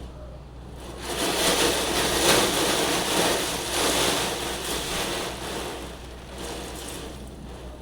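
Rainstorm: a rushing noise swells about a second in, holds for a few seconds, then fades away.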